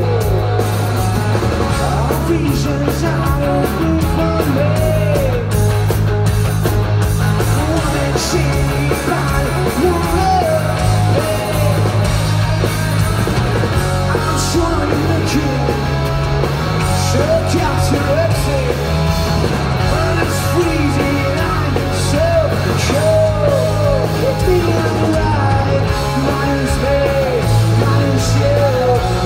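Live rock band playing loud, heard from the crowd: a driving electric bass line and drums with cymbal crashes under a shouted, sung lead vocal.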